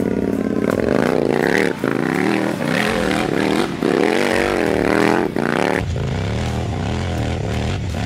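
KTM LC8 V-twin motorcycle engine in a 4x4 kart, revving up and down as the kart slides through dirt donuts. About six seconds in it changes to a lower, steadier engine note.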